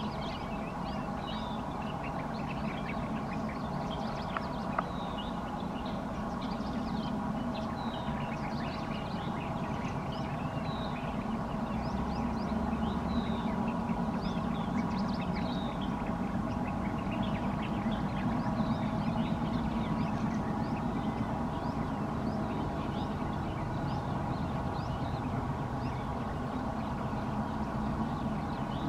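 Distant twin Alco diesel locomotives running steadily while hauling a passenger train: a steady engine drone made of several layered tones over a low hum, swelling a little in the middle. Birds chirp repeatedly throughout.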